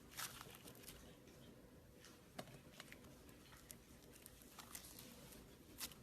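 Butter slime being handled: faint, scattered sticky clicks and soft squishes, about half a dozen over a few seconds.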